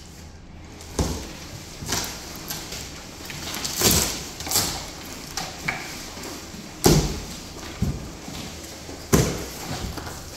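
Unpacking a large cardboard box: plastic wrap rustling and cardboard being handled, with a sharp crackle or knock every second or two, the loudest about two thirds of the way in.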